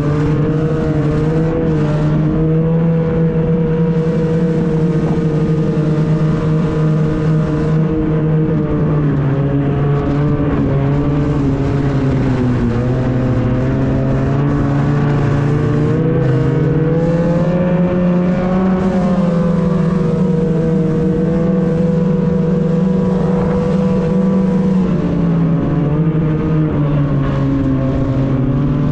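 Snowmobile engine running steadily while riding along a trail, its pitch dipping as it eases off about twelve seconds in, rising again as it speeds up around eighteen seconds, and dipping briefly near the end.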